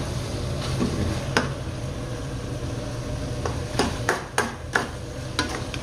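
Steel ladle stirring chicken pieces frying in ginger and garlic in a steel pan, with sharp clinks and scrapes against the pan, several in quick succession in the second half, over the sizzle of the frying and a steady low hum.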